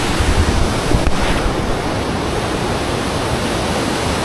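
Fast-flowing stream rushing steadily beneath a wooden footbridge, a loud, even water noise, with a low rumble of wind on the microphone early on and one short knock about a second in.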